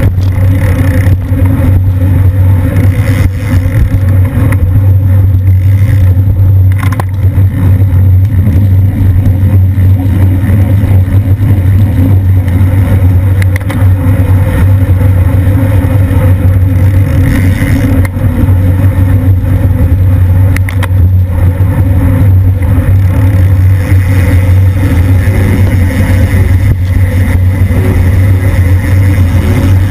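Wind buffeting and road rumble on a camera mounted on a racing bicycle moving at about 20–25 mph: a loud, steady low rumble.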